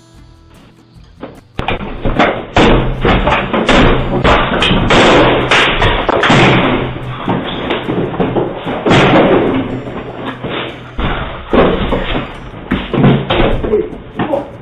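Loud, repeated thumps and knocks, starting suddenly about a second and a half in, over background music.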